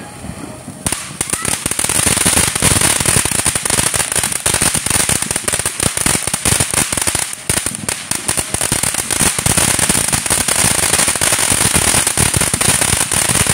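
Ground fountain firework spraying sparks: it starts about a second in with a loud steady hiss full of dense crackling.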